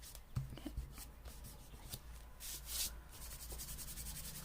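Paper being rubbed and handled: scratchy rustling with a louder scrape about two and a half seconds in, then quick fine rubbing strokes near the end.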